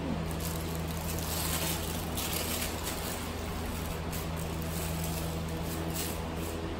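Plastic piping bag of yogurt sauce rustling and squishing as it is filled and squeezed by hand, loudest about one to three seconds in and again near six seconds. A steady low hum underneath.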